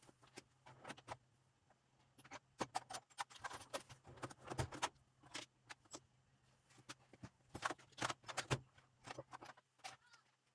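Irregular metallic clicks and knocks of bolts, washers and tools being handled while a transfer case is taken apart, in two busy clusters, over a faint steady hum.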